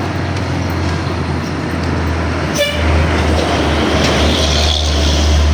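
Steady rumble of passing traffic on a main road, with wind on the microphone. A brief high-pitched toot about two and a half seconds in.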